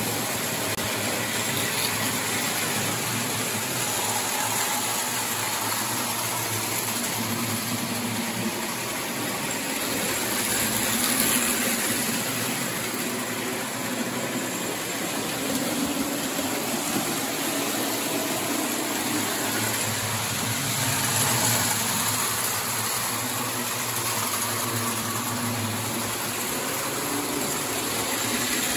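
O-gauge model trains running on three-rail track: a steady rumble and whir of the locomotive motors and wheels on the metal rails.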